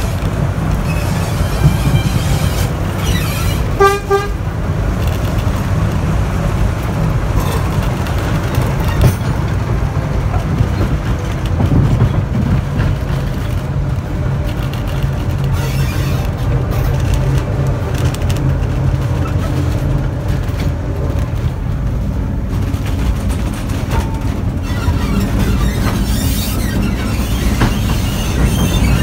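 Ruston 165DS diesel shunter hauling goods wagons, a steady low rumble of engine and running gear heard from a wagon behind it, with one short horn toot about four seconds in.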